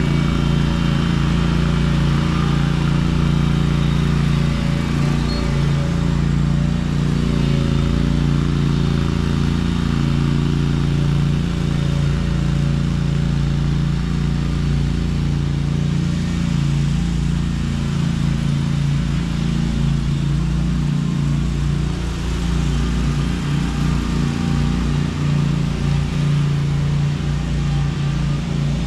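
Small gasoline engine of a walk-behind lawn machine running steadily at constant speed.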